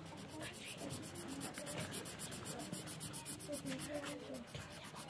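Felt-tip pen scribbling back and forth on notebook paper as a patch is coloured in: a quick scratchy rubbing, about eight strokes a second.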